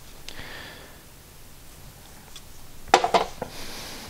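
A few light metallic clicks and clinks from small steel tooling being handled by hand, with a short cluster of sharper clicks about three seconds in.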